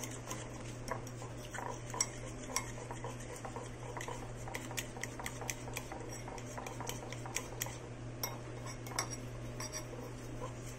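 Metal fork whisking a thin flour-and-cornstarch batter in a bowl, its tines clicking against the bowl in quick, irregular taps.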